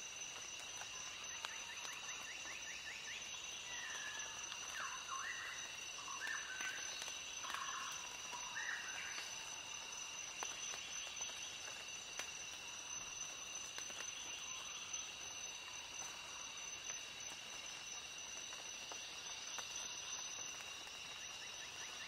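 Steady high-pitched insect chorus, like crickets, with a few short chirping calls from about four to nine seconds in.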